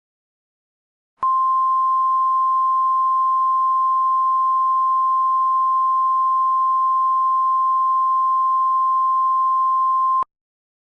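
Simulated Emergency Alert System attention signal: one steady, unwavering high beep that starts about a second in, holds for about nine seconds and then cuts off sharply. It marks the start of an emergency broadcast, just before the spoken alert message.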